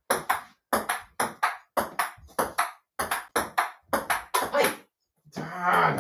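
Table-tennis ball clicking back and forth on paddles and a mini table in a quick rally, paired ticks two or three times a second. The rally stops just before five seconds in, and a short vocal cry follows near the end.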